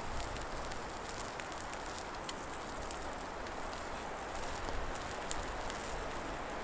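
Small campfire burning low with a few faint, scattered crackles over a steady background hiss.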